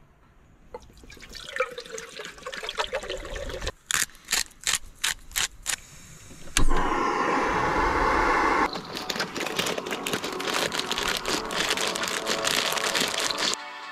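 Water poured from a plastic bottle into a camping-stove pot, the pitch rising as the pot fills, then a run of short glugs. About halfway through, a sudden loud steady rushing noise starts and carries on until just before the end.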